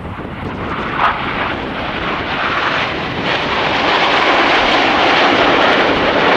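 A formation of Aermacchi MB-339 jet trainers flying past, their single turbojet engines making a steady rushing jet noise that builds in loudness over the first few seconds and then holds.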